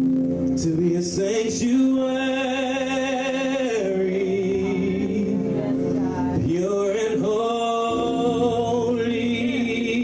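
Gospel worship song: a singer holds long, wavering sung notes with no clear words, sliding down and back up about two-thirds of the way through, over steady sustained accompaniment.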